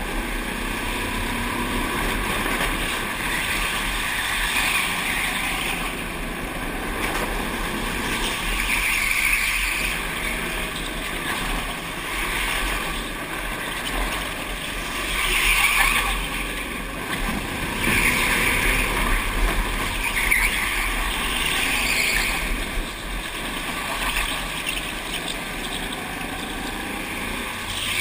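Go-karts running on an indoor track, heard from a camera on the driver's helmet: a steady, noisy motor-and-rushing sound that swells and eases every few seconds as the kart drives on.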